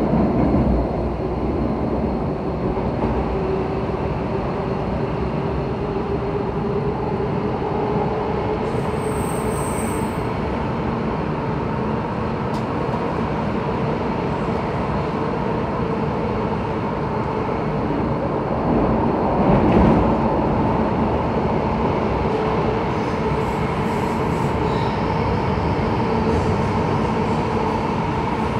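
Inside a Bombardier Movia C951 metro car while the train runs along the line: a steady rumble of wheels and running gear with a faint droning tone under it. It swells briefly louder about two-thirds of the way through.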